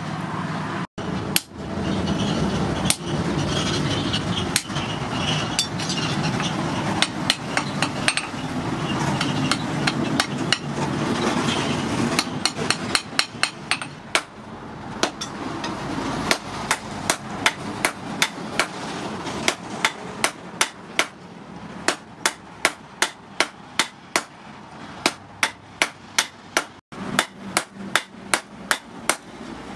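Hammer blows ringing on a steel anvil as red-hot rebar is forged into blacksmith tongs, with a sledgehammer struck alongside the hand hammer. The blows are spaced out at first over a steady rushing noise, then come fast and regular, about two to three a second, from the middle on.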